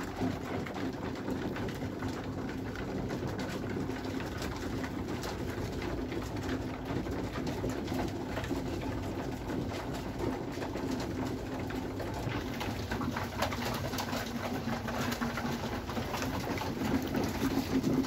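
A flock of racing pigeon cocks cooing continuously, with scattered light taps as they peck at the floor.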